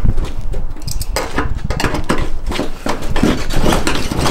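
Metal blade of a folding pocket knife clicking and scraping against the car's body kit and fasteners in the wheel arch, in quick irregular clatters.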